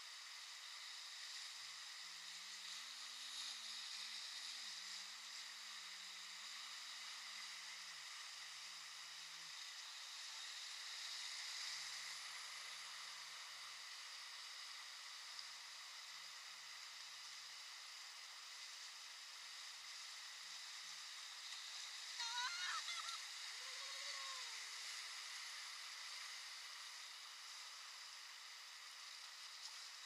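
Whitewater river rapids rushing around a raft: a steady hiss of fast-moving water. About three-quarters of the way through, a brief high cry rises and falls over the water noise.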